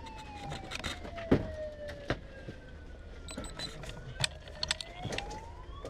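A siren wailing slowly, falling in pitch over the first half and rising again towards the end, with scattered sharp clicks and knocks over it.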